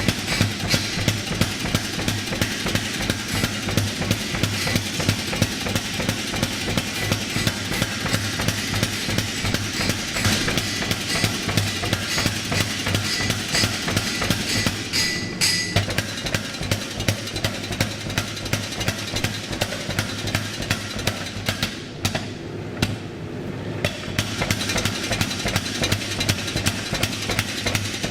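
Power hammer pounding a hot damascus billet in a rapid, steady run of blows, with a brief lull about 22 seconds in.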